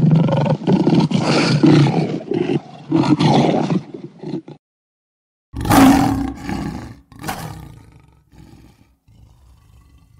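Lion roaring: a run of deep, loud, grunting roars, a break of about a second, then another loud roar about halfway through that trails off into weaker grunts.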